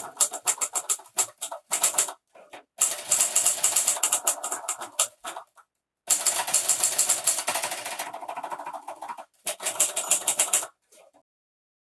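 Typewriter being typed on quickly: a fast, loud clatter of key strikes in three runs, split by short silent gaps.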